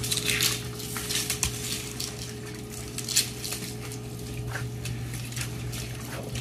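Water from a garden hose spattering on a crocodile's hide and the wet concrete as it is washed, in uneven splashes over a steady low hum.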